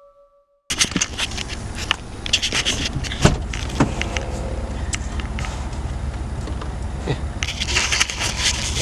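Hands working on parts at a truck's steering column, likely fitting the turn signal switch and its rubber boot: a run of sharp clicks and scrapes over a steady low rumble, starting abruptly about a second in.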